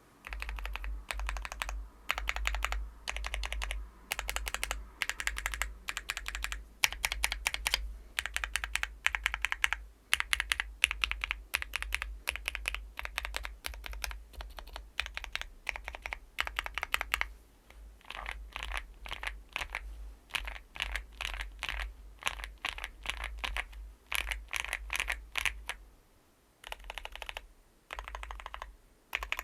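Mechanical keyboard keys being pressed in rapid runs of clacks, with short pauses between runs: a Zoom65 EE R2 with Gateron Oil King linear switches in a polycarbonate plate and Novelkeys Cherry Stone keycaps.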